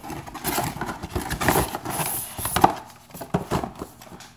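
Cardboard packaging handled: an inner box sliding and scraping out of its cardboard outer box, with rustling and small knocks. There is one sharp tap about two and a half seconds in, then quieter handling.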